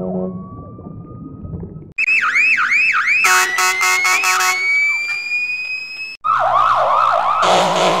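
Police siren sound effect played through a series of audio filters. It starts muffled and low, switches abruptly to a higher-pitched version about two seconds in, then to a buzzy, grainy version about six seconds in. Each version has a few fast rising-and-falling whoops, a rapid pulsing stutter and a long, slowly rising tone.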